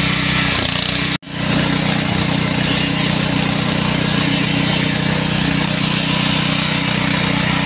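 Small petrol engine of a concrete poker vibrator running at a steady speed while its flexible shaft and poker work in wet concrete. The hum drops out for an instant about a second in and picks straight back up.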